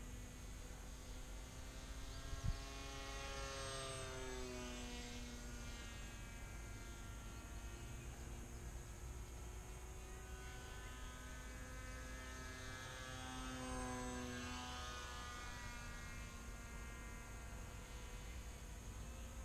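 3D-printed radio-controlled model plane's motor and propeller buzzing overhead, its pitch sliding down as it passes by, twice. A single sharp click about two and a half seconds in.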